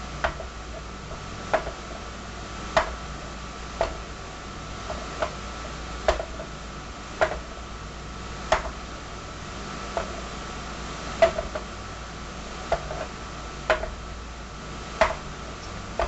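Homemade overbalanced gravity wheel turning slowly, its rope-hung weights clicking and knocking as they shift, about once a second at uneven spacing. A faint steady hum lies underneath.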